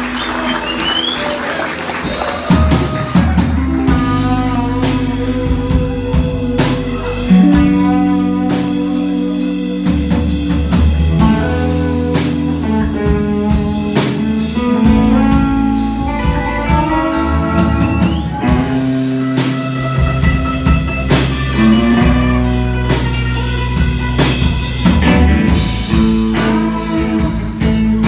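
Rock band playing live: electric guitars, electric bass and drum kit in an instrumental passage, the bass and drums coming in about two and a half seconds in.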